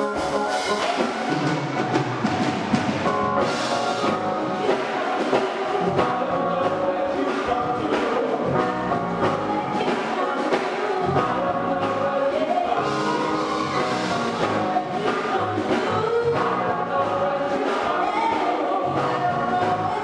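Live gospel worship song: singers and a choir with instrumental backing.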